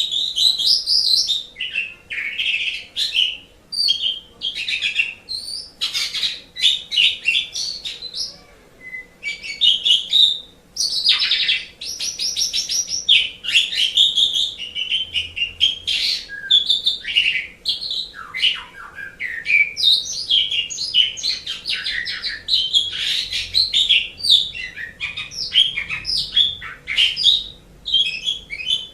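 Pied starling (jalak suren) singing a long, varied song with hardly a pause. It mixes rapid chattering rattles with whistles and slurred notes that glide up and down.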